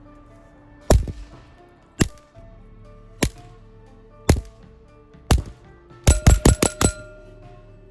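Suppressed .22 LR pistol shots from a Taurus TX22 Compact fitted with a SIG suppressor and firing standard-velocity ammunition. Five single shots come about a second apart, then five in quick succession near the end, over background music.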